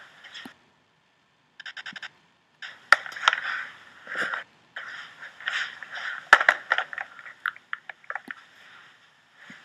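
Choppy audio from dodgeball footage being played and skimmed in a video editor: bursts of scraping noise that cut in and out abruptly, a rapid stutter about two seconds in, and two sharp knocks, about three and six seconds in.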